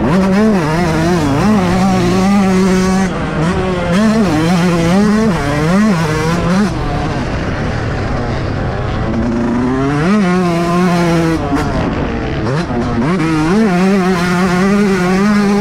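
Yamaha YZ125 two-stroke single-cylinder engine ridden hard, its note rising sharply and dropping back again and again as it revs out through the gears. About seven seconds in the engine note fades for a couple of seconds before it revs up again.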